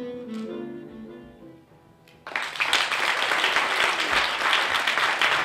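Instrumental music with sustained notes fading away, then audience applause breaking out suddenly a little over two seconds in and cutting off abruptly at the end.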